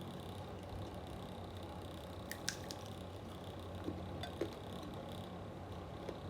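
Close-up eating: a few short wet clicks and squishes from chewing, over the steady hum of an electric fan.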